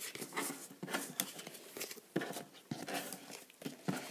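Handling noise: a string of light, irregular clicks and rustles as Pokémon trading cards and a plastic deck box are moved about by hand.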